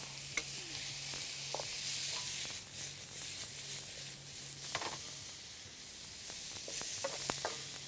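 Fish and vegetables sizzling in a hot wok over a gas flame as they are stirred and tossed with a wooden spatula, with a few light knocks of the spatula against the pan.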